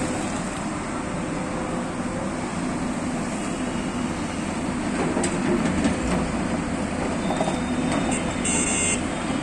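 Hyundai crawler excavator's diesel engine running steadily as it digs soil and loads a tipper truck. There is a brief high-pitched squeal near the end.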